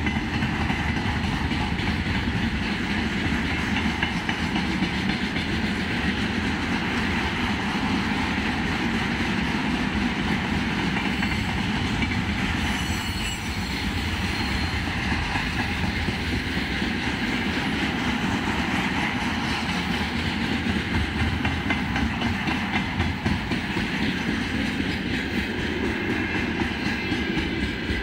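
Freight train's tank cars and pipe-carrying flatcars rolling past: steady noise of steel wheels on the rails with a clatter over the rail joints.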